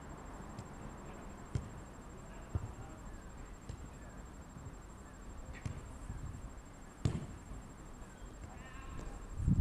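Football being kicked on an artificial pitch: a few sharp thuds spaced a second or more apart, the loudest about seven seconds in, over a steady low rumble.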